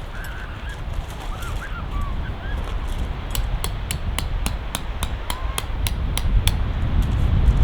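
Wind rumbling on the microphone, getting louder toward the end, with short chirping bird calls and a run of sharp clicks through the middle.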